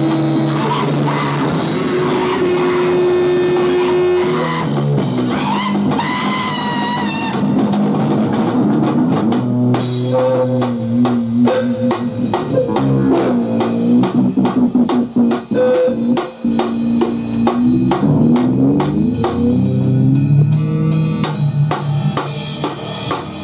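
Live rock band playing: drum kit, electric bass and electric guitar, with a woman singing into a microphone. The drumming gets denser from about ten seconds in.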